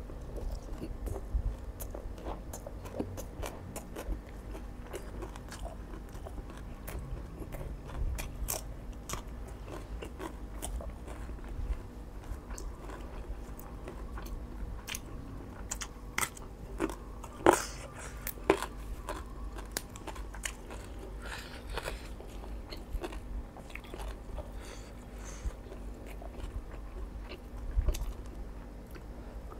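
A person biting and chewing a mouthful of Isan spicy shrimp salad with crisp raw vegetables, with wet crunches and scattered clicks throughout. The sharpest crack comes about seventeen seconds in.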